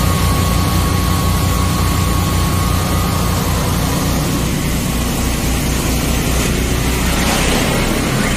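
Engine-driven high-pressure drain jetter running on both of its engines at once, its pump under load feeding the hose: a loud, steady, deep engine drone with a fast, even pulse.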